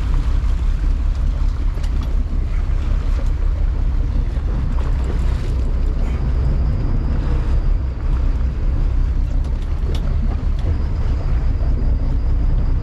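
Sport-fishing boat under way: a steady low engine drone with wind buffeting the microphone and the sea rushing past.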